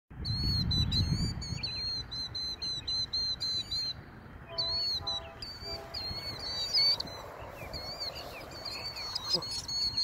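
Killdeer calling: short, high, piercing calls repeated about twice a second, with a brief pause around four seconds in. A low rumble sits under the first second or so.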